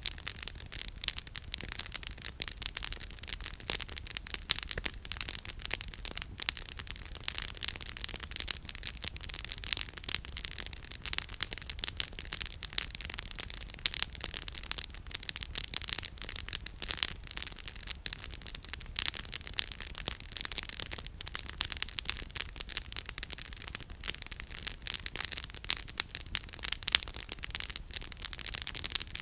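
Wood campfire crackling, with a dense run of irregular sharp pops and snaps from the burning firewood over a low steady rumble.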